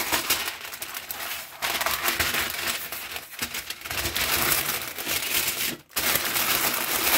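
Sheet of baking paper crinkling and rustling as it is handled and folded around a fish parcel, breaking off briefly near the end.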